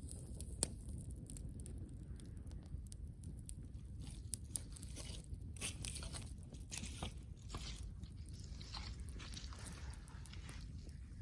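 Wood campfire crackling, with a sharp pop about half a second in. From about four seconds in there is a busier stretch of crackling and hissing that eases off near the end.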